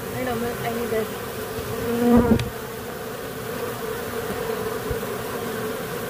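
Steady hum of an exposed honey bee colony, which the beekeeper calls killer bees, agitated as its comb is cut out. There is a short knock about two seconds in.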